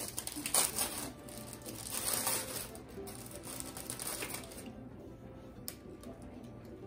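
Plastic sleeve of graham crackers crinkling and rustling as it is opened and crackers are pulled out, over soft background music; the crinkling dies down about four and a half seconds in, leaving a few light clicks.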